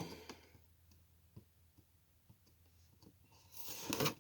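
Faint scattered clicks and light handling noise from cardboard and plastic firework packaging, with a louder rustle near the end.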